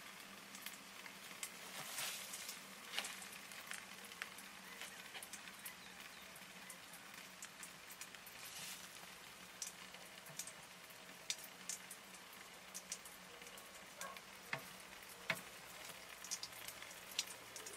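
Faint sizzling crackle with scattered small ticks: liquid propane draining from the open valve of an inverted Coleman camping gas cylinder into a glass jar and boiling as it collects.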